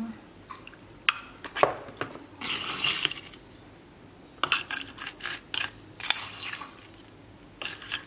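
Crushed ice being spooned and tipped from a ceramic bowl into a glass: sharp clinks of a metal spoon against the bowl and glass, and ice chunks clattering in, with a rustling scoop about two and a half seconds in.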